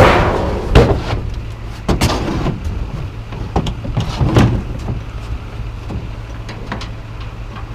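A vehicle engine idling with a steady low hum, while scrap metal is unloaded with scattered clanks and knocks, the loudest in the first two seconds.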